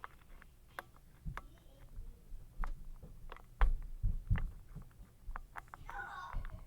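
Irregular light clicks of a hook pick and tension wrench working the pin stack of an Abus 55/50 padlock, mixed with dull low thumps of footsteps pounding on the floor above, heaviest about halfway through.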